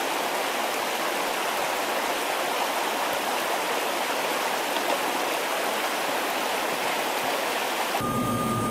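Meltwater stream in a rocky gully, a steady rush of running water. About eight seconds in it cuts to a helicopter cabin's steady hum with a high whine.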